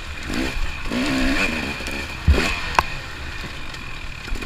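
Dirt bike engine revving up and down repeatedly as it is ridden, with two sharp knocks a little past two seconds in.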